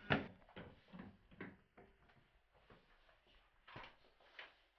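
A few faint, scattered knocks and clicks of a wooden door being handled.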